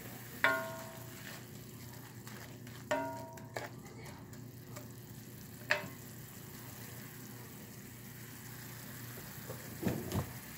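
Onion-and-broth reduction simmering with a quiet, steady sizzle in a cast iron skillet. Three sharp, briefly ringing clinks come about half a second in, at about three seconds and near six seconds, and near the end a wooden spatula stirs and scrapes in the pan.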